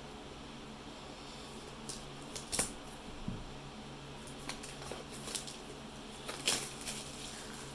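Packaging of a sealed booster box being handled and opened: scattered crinkles and clicks, two louder ones about two and a half and six and a half seconds in, over a steady low hum.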